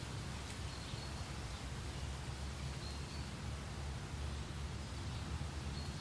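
Outdoor meadow ambience: wind blowing, a steady low rumble with soft hiss above it. Three faint, short high bird chirps come about one, three and six seconds in.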